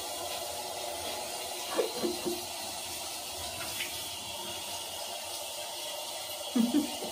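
Handheld shower running water over a small dog in a bathtub, a steady hiss of spray. A few short whimpers from the dog come about two seconds in and again near the end.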